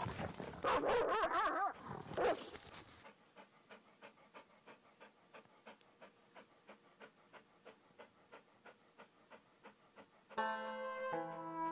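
Dogs out on a walk, with a high wavering whine about a second in, then faint rhythmic breathing sounds about four a second from a resting dog. Plucked-string music starts near the end.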